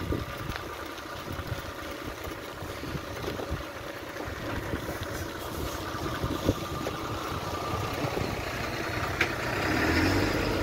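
Fire engine's motor running as the truck drives toward the rider and passes close by, getting louder near the end, over steady road and wind noise.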